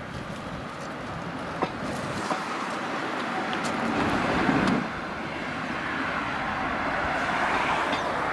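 Wheels of a small sail-powered rail wagon rolling past close on narrow-gauge track, growing louder, with a couple of sharp clicks. The sound drops abruptly about five seconds in to a steady rush of wind and road traffic.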